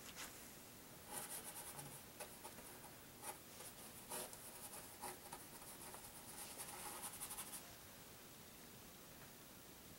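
Faint scratching of a paintbrush working paint in quick, repeated strokes, running for about six seconds from a second in.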